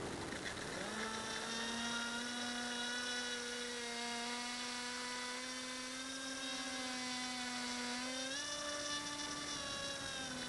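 HobbyKing Skipper RC flying boat's electric motor and pusher propeller whining as the model powers up and runs across water, a steady pitched whine that starts about a second in, rises briefly near the end and falls away, over the hiss of water spray from the hull.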